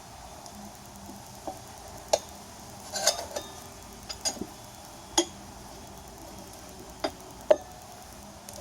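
Sharp metal clinks and taps, about seven spread out with a short cluster near the middle, from tire spoons and a screwdriver knocking against a motorcycle wheel rim while prying off a tire.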